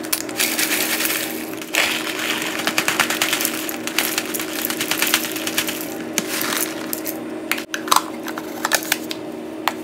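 Dry cornflakes, then granola, pouring out of their bags into a clear plastic container: a dense crackling rattle of flakes and clusters landing on plastic and on each other. Near the end, a plastic lid is pressed down onto the container with a few sharp clicks.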